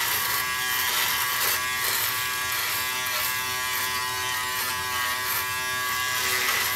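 Remington Wetech PF7580 electric foil shaver running steadily against stubble on the jaw and neck, a constant even buzz.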